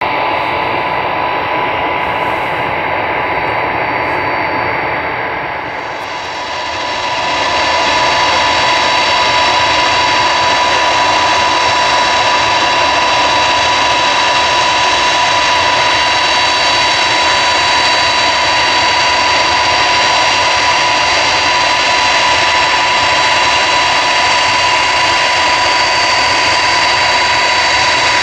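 Ilyushin Il-62's four rear-mounted jet engines running at taxi power, a steady high whine over a dense rumble. The sound dips briefly about six seconds in, then grows louder and holds steady.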